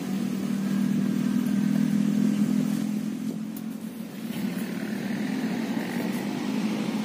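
A small engine running steadily, a low hum that holds across the whole stretch, a little louder in the first half.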